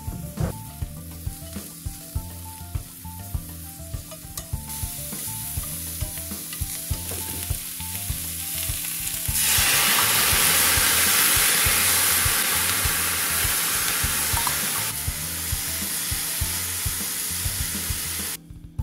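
White maitake mushrooms sizzling in hot oil in a black iron frying pan as they are stirred with wooden chopsticks. The sizzle builds and becomes much louder for several seconds about halfway through, then eases a little.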